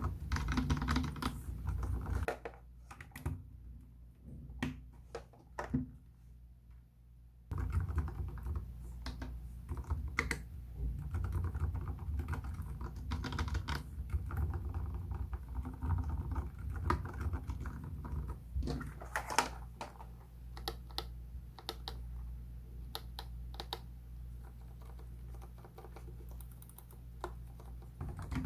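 Typing on a mechanical keyboard fitted with soft silicone-covered keycaps over Gateron Silent Brown switches. About two seconds in the keystrokes thin out to a few scattered presses for several seconds, then steady typing resumes.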